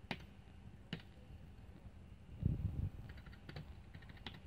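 Computer keyboard keys being pressed: a few separate clicks, with a quick run of key presses near the end. About two and a half seconds in there is a dull low thump lasting about half a second.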